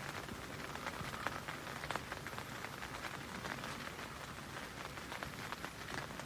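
Light rain pattering: a steady spread of many faint drops.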